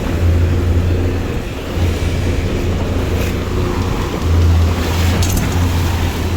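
Ski boat's outboard motors running steadily under way, a continuous low drone with the hiss of water and wind over it.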